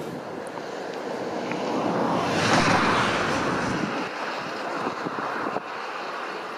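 Rushing outdoor noise that swells to a peak about two and a half seconds in, then eases back to a steady hiss.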